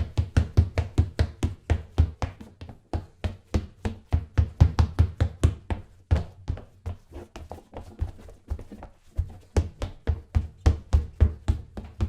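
Footsteps on a wooden parquet floor: a quick, steady run of heavy footfalls, several a second, with a couple of short lulls.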